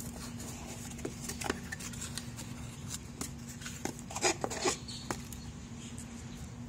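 A small cardboard mailer box being handled and its flap pulled open: light scrapes and clicks of card, loudest in a short cluster about four seconds in, over a steady low hum.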